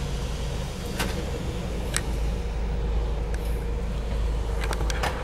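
Honda Freed's four-cylinder petrol engine idling with a steady low hum, its air conditioning on, with a few light clicks about one and two seconds in and again near the end.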